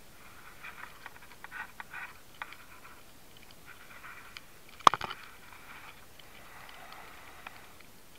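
Rustling, scraping and scattered clicks from a camera riding on an optical fiber bundle, rubbing against straps and conduit as the bundle is pulled, with one sharp knock about five seconds in.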